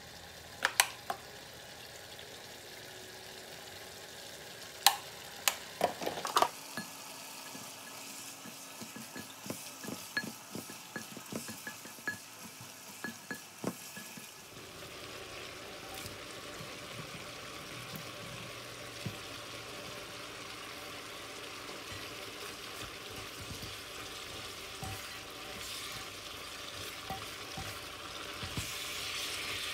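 Chicken and vegetables frying in a pan, stirred with a spatula that scrapes and ticks against the pan, with several sharp knocks in the first six seconds. From about halfway the sizzle turns into a steady hiss that grows louder near the end.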